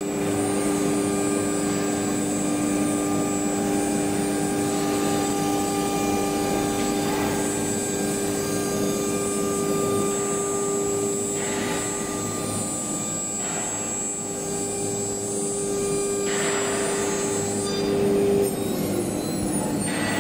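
Automatic tool-change CNC wood router at work: its 9 kW spindle and machine drives give a steady whine and hum, with a few short rasping bursts as the router bit cuts into the wood panel. One of the steady tones cuts off shortly before the end.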